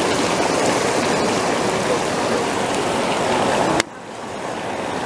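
Hot tub jets churning the water: a steady rushing and bubbling. Nearly four seconds in it breaks off with a click, returns quieter and slowly grows louder again.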